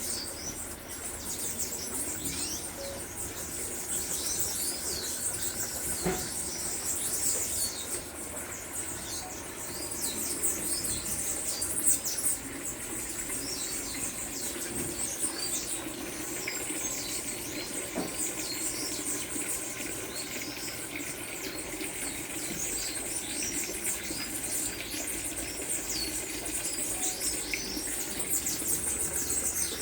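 Many birds chirping at once, a dense, continuous chatter of short, high, falling notes, with an occasional brief knock.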